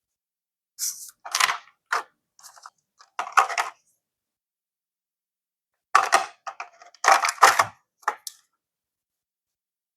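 Packaging of art-supply items being handled and opened: short rustling and crinkling bursts in two clusters, with a pause of about two seconds between them.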